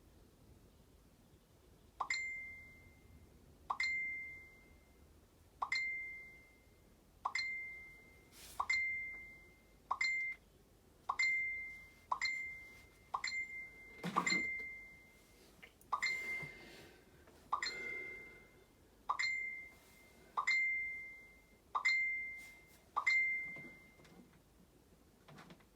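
A Kindle's notification chime going off over and over, "going berserk": a short high ding that fades quickly, repeated about fifteen times roughly every second and a half. Faint rustling handling noise comes in around the middle.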